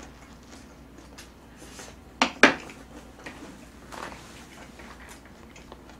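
Tableware clicking and tapping while eating: a spoon knocking on the dishes, with two sharp clicks close together a little after two seconds in.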